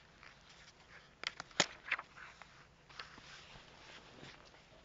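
Handling noise from hands moving the book's pages and the handheld phone filming it: a cluster of sharp clicks and paper rustles about a second and a half in, and a few softer ones around three seconds in.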